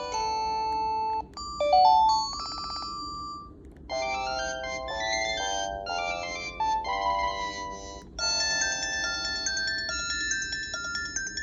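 Built-in ringtones of a Panasonic KX-TG3721 cordless phone handset previewed one after another: short electronic melodies, each cut off after a few seconds as the next one starts, with changes about a second in, at two and four seconds, and again near eight seconds.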